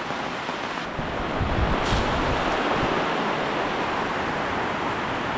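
Heavy rain pouring down in a steady torrential downpour, briefly joined by a low wind rumble on the microphone about a second and a half in.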